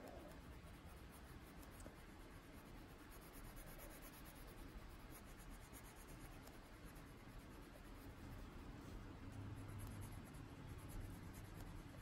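Faint scratching of a Prismacolor coloured pencil shading on paper in repeated strokes.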